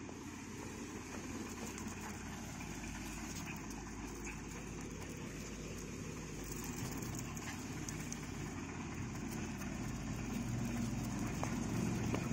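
Low, steady rumble of road traffic that grows gradually louder toward the end.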